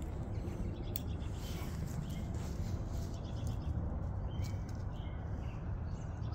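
Outdoor evening ambience: a steady low rumble with a few short, high bird chirps in the second half, and a single click about a second in.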